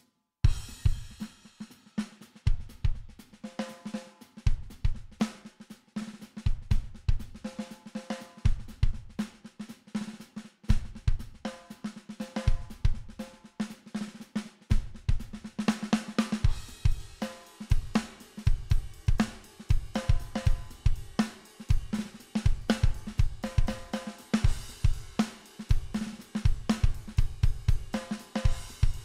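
A sampled rock drum-kit loop playing back with kick, snare and hi-hats in a steady beat, run through guitar-amp-simulator, pedal and compressor plugins for a saturated drum sound. Cymbals fill in about halfway through.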